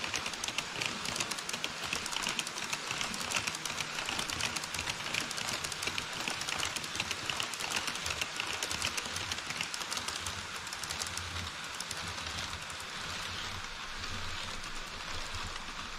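HO-scale model trains, an E5 series shinkansen and a freight train, running on KATO Unitrack: a steady clatter of small metal wheels clicking rapidly over the rail joints. The clicking is busiest for the first ten seconds or so and grows lighter near the end.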